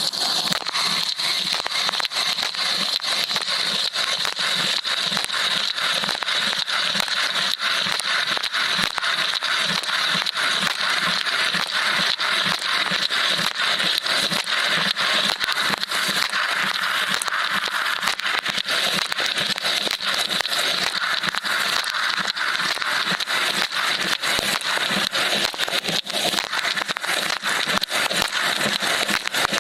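Water from an LG dishwasher's spray arm pelting the tub walls and dishes, heard from inside the machine: a dense, steady spattering over a continuous hiss.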